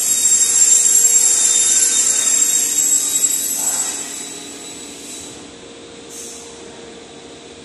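A small high-speed machine whining with a hiss, dying away about four seconds in, then a brief hiss a couple of seconds later.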